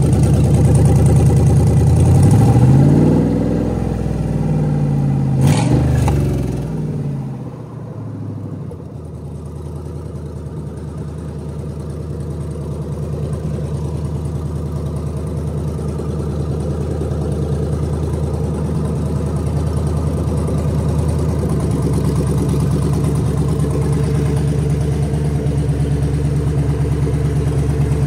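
GM 6.0-litre L96 V8 engine running on a test stand. Its pitch shifts up and down over the first several seconds, with a sharp click about five seconds in, then it settles to a steady idle.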